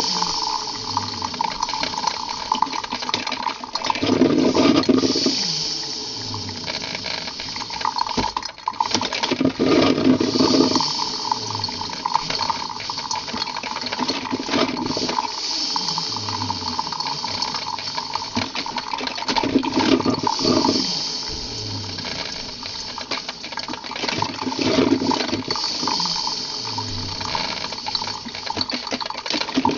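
Coffee machine running with water flowing, over a steady hum and hiss, swelling in a louder surge about every five seconds.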